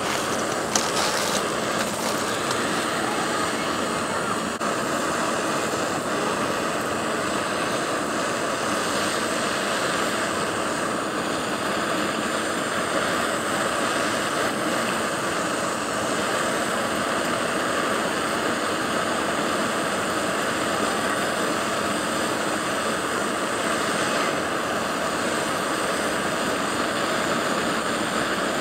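BRS canister stove's burner running steadily under a coffee percolator: a constant, even hiss. One brief click about a second in.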